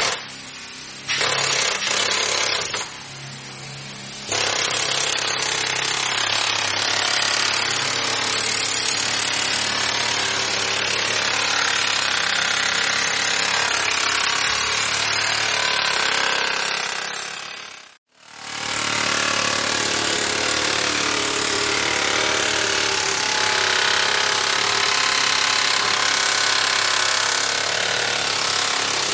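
Power tools running under load in separate recordings: a short burst, another from about one to three seconds in, then continuous running until it cuts out about 18 seconds in, after which a different tool starts up and runs steadily.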